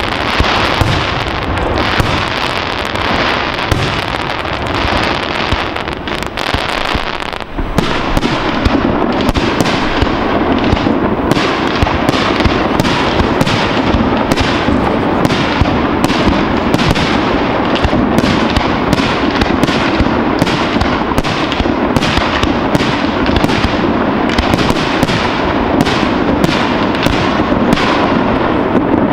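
Fireworks display: aerial shells bursting one after another in a fast, dense barrage of bangs, with a short lull about seven seconds in.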